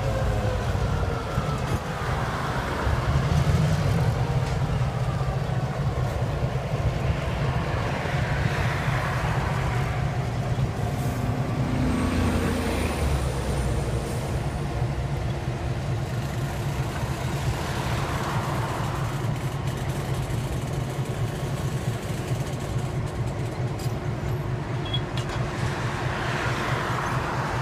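Diesel locomotives, EMD GP9 road switchers, running with a steady low engine rumble while switching boxcars, with brief swells of hissing noise over it.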